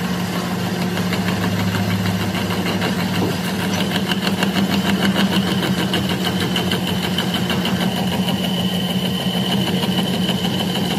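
Metal lathe running, its cutting tool turning down a steel excavator bucket pin: a steady motor hum with fine rapid ticking, joined about three or four seconds in by a high steady whine from the cut.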